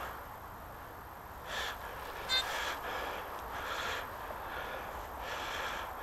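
A man breathing audibly close to the microphone, several soft breaths in a row starting a second or so in.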